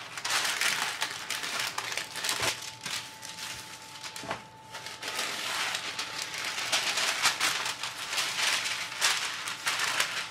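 Baking paper rustling and crinkling as it is laid over a ball of sablé breton dough and pressed flat by hand, with many small sharp crackles.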